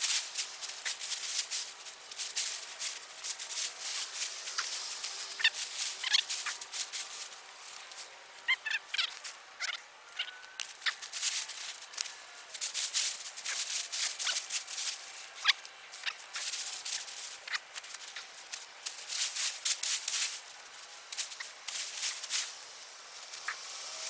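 Irregular rustling and crackling of potato plants and soil being dug through and pulled by hand, with a few short high chirps between about four and nine seconds in.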